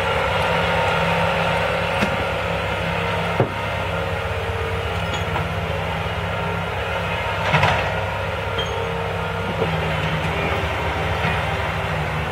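Diesel engines of a track-mounted caisson drill rig and a compact track loader running steadily. A few sharp knocks break in, the loudest about seven and a half seconds in.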